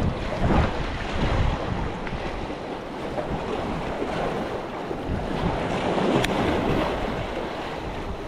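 Wind buffeting the microphone over the steady wash of waves, in uneven gusts. A single small click about six seconds in.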